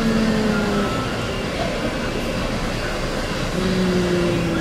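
Steady rumble of restaurant background noise. A person hums a drawn-out, slightly falling 'hmm' while thinking, once around the start and again near the end.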